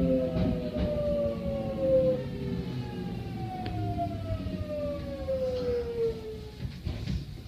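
Kintetsu electric train's traction motors and inverter whining in several tones that slide slowly down in pitch as the train brakes, over a low running rumble, fading out about six and a half seconds in.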